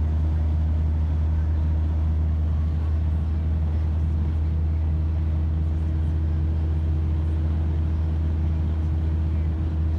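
Cabin drone of a 1955 Morris Minor at highway speed: its 803 cc A-series four-cylinder engine running steadily under road and wind noise, a deep, even hum.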